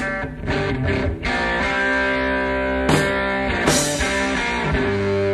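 1970s heavy rock recording: guitar chords ringing out and held, changing every second or so, with a couple of sharp chord attacks midway.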